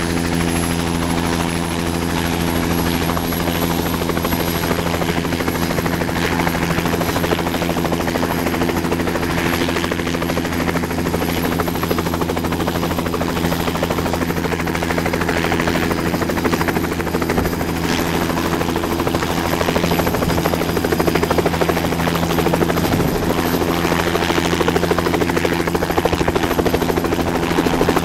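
Bell 206 JetRanger helicopter running with its two-bladed main rotor turning: a steady rotor beat under a high turbine whine that edges up in pitch. It grows louder over the last several seconds as the helicopter lifts off the pad.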